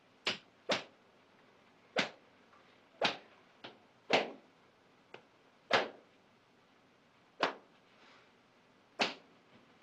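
A thin wooden school cane striking boys' outstretched palms in a caning: eight sharp cracks about one to one and a half seconds apart, with a couple of fainter strokes between them.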